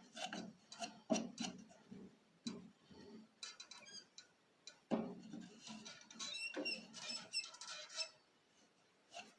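Scattered light clicks, taps and scraping of hand tools and a wooden workpiece being handled at a stopped lathe, with a few brief high metallic rings, loudest about five seconds in.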